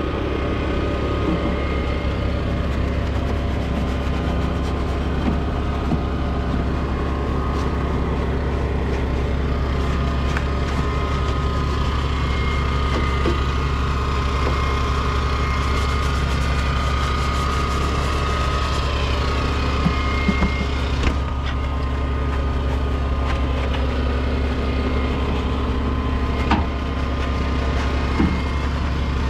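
Small engine running steadily with a low, even drone, with a few brief knocks in the last third as parts in a foamed engine bay are brushed.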